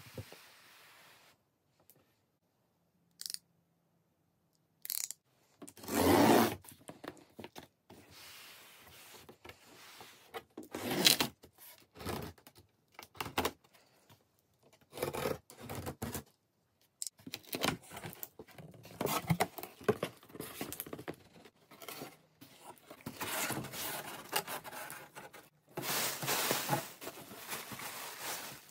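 Cardboard shipping box being opened by hand: packing tape slit and ripped off, cardboard flaps scraped and pulled open, and plastic air-pillow packing rustling and crinkling as hands dig into it. A string of separate scrapes, rips and rustles, the loudest about six and eleven seconds in.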